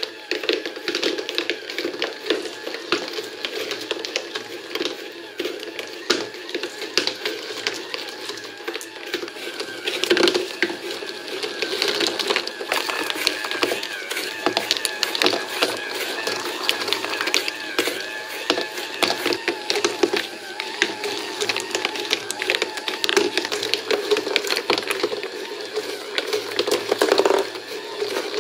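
A small yellow DC gear motor hums steadily as it drives a cardboard escalator. Glass marbles make a dense, uneven stream of clicks and rattles as they knock on the cardboard steps and roll along the cardboard tracks.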